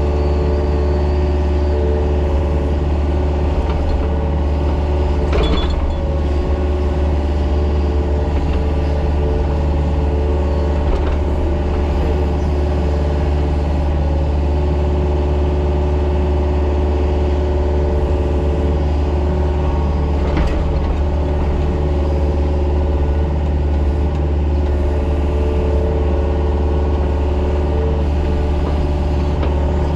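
Mini excavator's diesel engine running steadily under working load, with its hydraulics whining at times, and two short knocks, about five seconds in and again about twenty seconds in.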